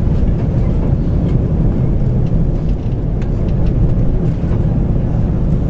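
Steady low rumble of cabin noise inside a four-engined Airbus A340 during descent, with a few faint ticks over it as the plane bounces through clouds.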